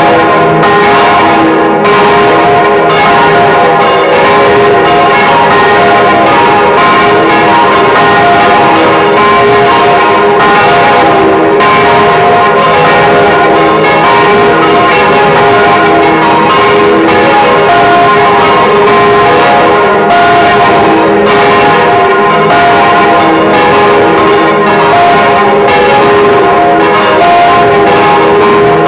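Several church bells, cast by the Causard foundry of Colmar, swinging and ringing together, heard close up from inside the belfry: clapper strikes overlap in an uneven rhythm over a continuous loud ringing.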